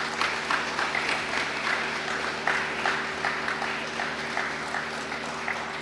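An audience applauding, a crowd of hands clapping at once, slowly dying down toward the end.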